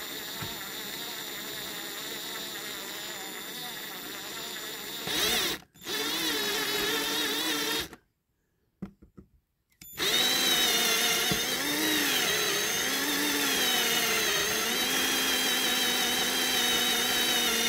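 Cordless drill running, its bit drilling into a diecast zinc toy cab to free it. A steady, quieter whir for about five seconds, then louder running with a brief cut, a stop of about two seconds near the middle, and a long louder run whose pitch wavers up and down.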